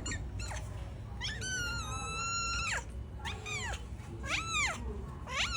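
A cat meowing: one long, steady meow about a second and a half in, followed by three shorter meows that rise and fall in pitch.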